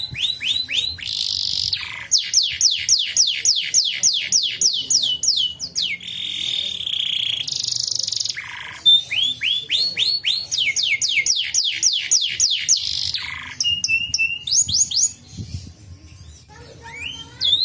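Domestic canary singing: long rolls of the same quick sweeping note repeated about four times a second, broken by a held buzzy note and short changes of phrase.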